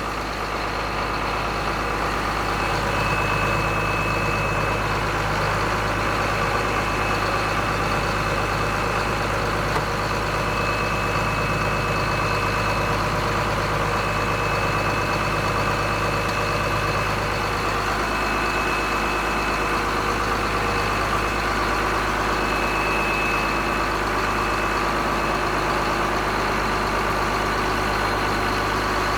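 John Deere 4755's six-cylinder diesel engine running steadily, with a faint high whine that comes and goes.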